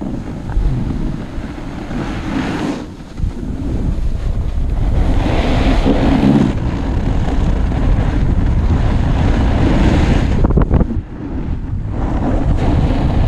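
Wind buffeting the camera microphone, together with the hiss and scrape of a snowboard sliding on groomed snow. The noise swells and eases as the rider turns, dipping briefly twice.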